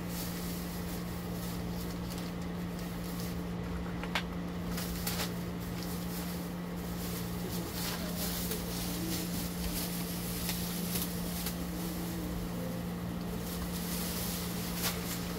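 A steady low hum, like a household appliance running, with a few faint clicks over it.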